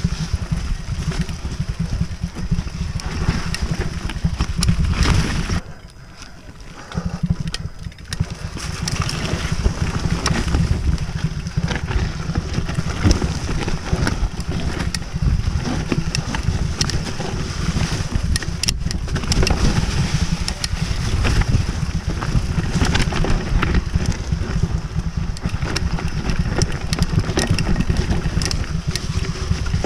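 Mountain bike ridden fast down a dirt trail: wind buffeting the microphone over a steady low rumble of tyres on dirt and leaves, with the bike rattling and clattering over bumps and roots. The noise drops away for about two seconds around six seconds in, then picks back up.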